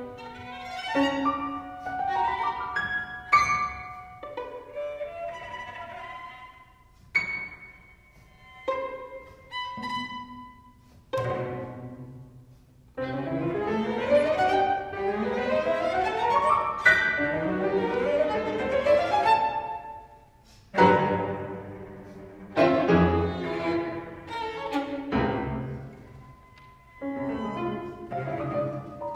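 Piano trio of violin, cello and piano playing a contemporary classical piece: short, separated string and piano gestures, then a dense passage that climbs in pitch, then a few sharp, loud accents near the end.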